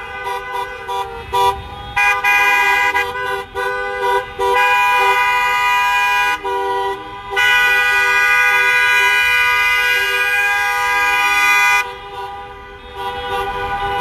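Vehicle horns honking: a few short toots, then longer blasts, the longest held for about four seconds.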